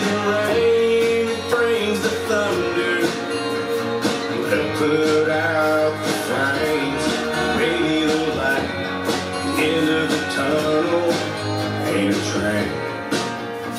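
Country music playing: a guitar-led song for line dancing.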